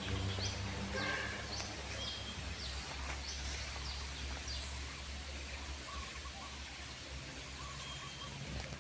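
Small birds chirping in short, repeated calls over a steady low background rumble.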